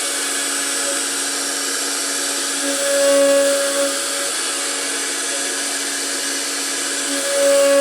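CNC router spindle running steadily with a high hiss. A lower hum swells louder for about a second, once about three seconds in and again near the end.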